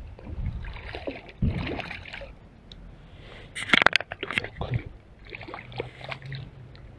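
Hooked chub splashing at the water's surface as it is brought in to the bank, with irregular splashes and a quick run of sharp, loud splashes a little past halfway.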